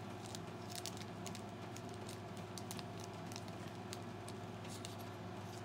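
Scattered light clicks and crinkles of a small package being handled as a sea urchin spine is pulled out of it, over a steady low hum.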